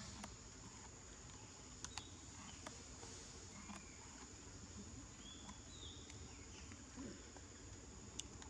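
Faint, steady, high-pitched drone of insects, with a few sharp clicks and some short chirps.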